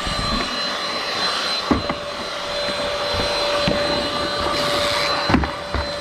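MOOSOO XL-618A cordless stick vacuum running with its main body attached directly to the floor head, a steady rushing whine as it is pushed under furniture. A couple of sharp knocks come through, one just under two seconds in and one near the end.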